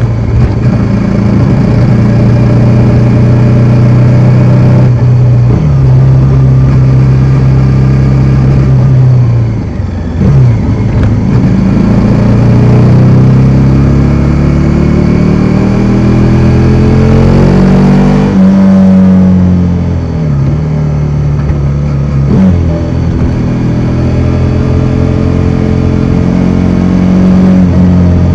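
Bajaj Dominar 400's single-cylinder engine running under way, its pitch stepping down and back up several times with gear changes and climbing steadily over several seconds in the middle as the bike accelerates.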